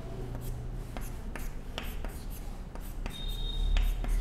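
Chalk writing on a blackboard: a string of short taps and strokes as bond lines and letters are drawn, with a brief high-pitched squeak a little after three seconds in.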